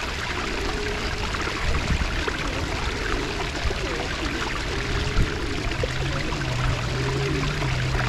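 Steady rush of running water. A low steady hum joins about six seconds in.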